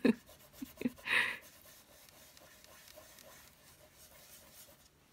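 Fingertips rubbing lustre wax onto a matte-board journal cover: a few short soft scuffs in the first second and a half, then only faint quiet rubbing.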